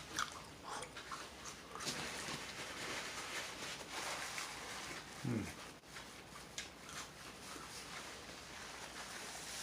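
Faint chewing and wet mouth sounds of someone eating, with scattered small clicks. About five seconds in there is a brief low voice sound that falls in pitch.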